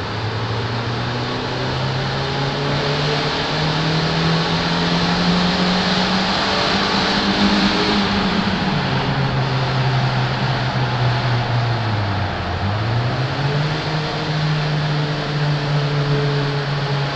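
Honda Civic EJ9's 96 PS four-cylinder engine and exhaust, with its intake gasket bored out, running under changing throttle in a tunnel. The engine note climbs for the first several seconds, falls away a little past the middle, dips low once more, then climbs again near the end.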